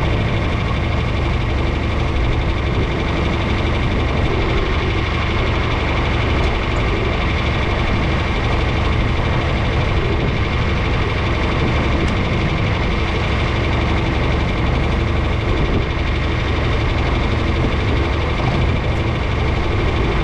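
A vehicle engine running steadily at a constant pitch, a loud even drone with no changes.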